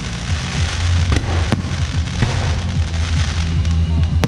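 Fireworks display crackling continuously, with a few sharp bangs as shells burst, over music with a steady heavy bass line.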